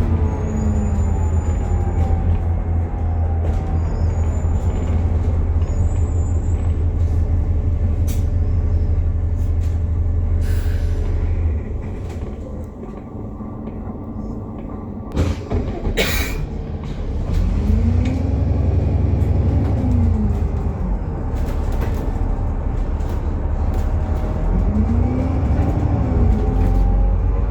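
Alexander Dennis Enviro400 MMC double-decker bus running with a really loud axle whine over a deep drone, the whine's pitch rising and falling with road speed. About halfway through it slows and goes quieter, with a couple of sharp hisses or clunks, then pulls away and the whine climbs and falls again.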